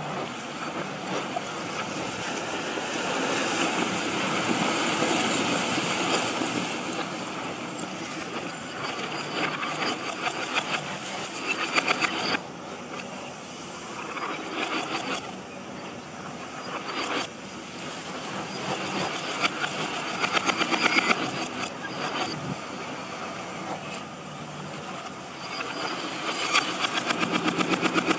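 Building-demolition noise played backwards: heavy machinery and falling debris as a dense, noisy rumble. Twice it swells and then cuts off suddenly, as reversed crashes do, and it turns into a rapid regular pulsing near the end.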